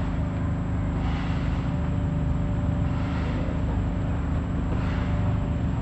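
A steady low engine drone with a pitched hum, with faint swells of hiss about every two seconds.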